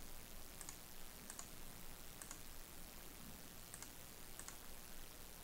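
Faint, scattered clicks of a computer mouse button, some in quick pairs, over a steady low hiss.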